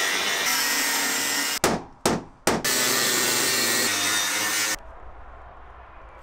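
Angle grinder cutting through an aluminium wall panel: a harsh, steady high whine of the cutting disc in the metal. It breaks off twice briefly about a second and a half in, runs again, then stops suddenly near the end, leaving only a low rumble.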